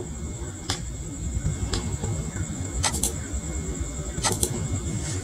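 Computer mouse clicking: a few sharp single clicks, then two quick double clicks, over a low steady background hum and a faint steady high whine.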